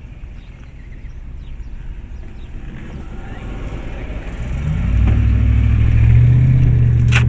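Car engine heard from inside the cab, running low at first, then revving up about four and a half seconds in as the vehicle pulls away and holding a steady drone under acceleration. A short sharp click near the end.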